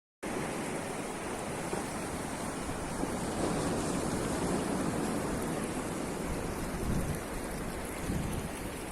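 Sea surf washing onto a sandy beach: a steady rush of noise that grows a little louder about three seconds in.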